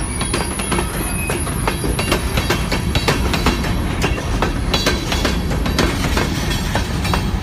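Kiamichi Railroad freight train's covered hopper cars rolling past close by: a steady low rumble with many sharp clicks and knocks from the wheels and couplers, and a few brief high wheel squeals.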